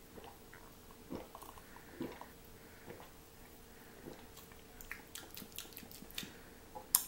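Quiet gulps as a man sips and swallows sparkling lemonade from a glass, about one a second. From about five seconds in come a run of lip smacks and tongue clicks as he tastes it.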